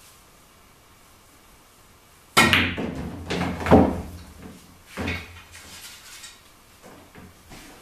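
Pool cue striking the cue ball about two and a half seconds in, followed by sharp clacks of balls colliding and knocking against the cushions and pocket, the loudest about a second later as an object ball is pocketed, then a few fainter knocks as the balls settle.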